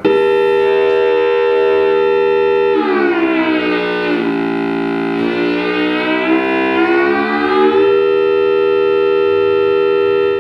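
Ploytec PL2 analog mini synthesizer holding one sustained pulse-wave note in its waveform 7, whose second pulse-width control also shifts the tuning. From about three seconds in, a control is turned and the overtones bend down and back up in a sweep lasting about five seconds. The note cuts off right at the end.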